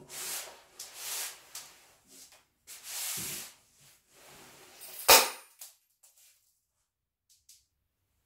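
Hands rubbing and sliding over a large sheet of fabric, a few short swishes in the first three seconds or so, then a single sharp, loud click about five seconds in.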